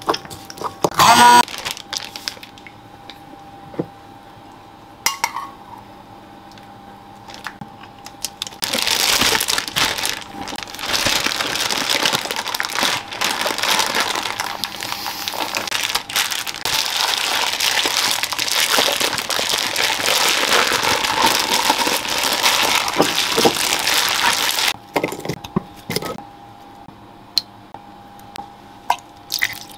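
A zip-top plastic bag of chicken being squeezed and kneaded by hand to work in the marinade: a long stretch of dense plastic crinkling that starts about a third of the way in and stops suddenly some sixteen seconds later. About a second in, a spoon clinks once against a ceramic bowl while stirring spices.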